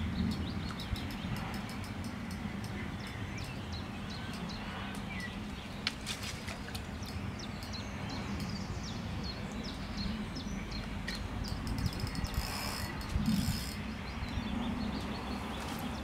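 Outdoor ambience: a steady low background rumble with small birds chirping here and there, and a short run of rapid clicking about three quarters of the way through.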